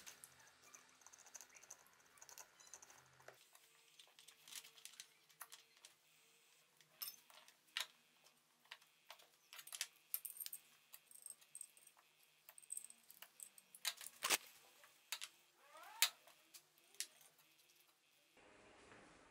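Faint, scattered clicks and taps of small tools and parts being picked up, set down and handled on a wooden workbench, with a few louder knocks and one brief scrape near the end.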